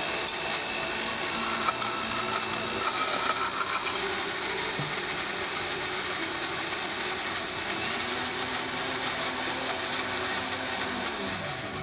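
Countertop blender running steadily, grinding almonds and cashew nuts with a little water into a coarse crust mix; it is not a high-speed blender. The motor stops right at the end.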